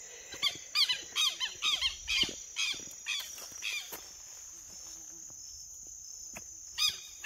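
Steady high-pitched drone of insects, with a run of repeated pitched calls from an animal, about three a second, for the first few seconds and once more near the end.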